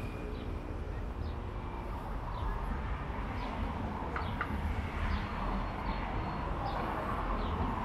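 Busy city street ambience: a steady rumble of traffic under repeated short, high chirps from small birds.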